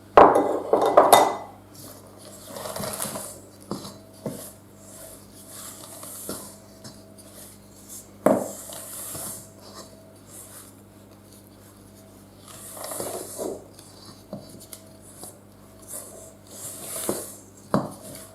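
Kitchen utensils clattering, knocking and scraping in a mixing bowl as cake batter is worked: a loud clatter at the start, then intermittent scraping swishes and a few sharp knocks.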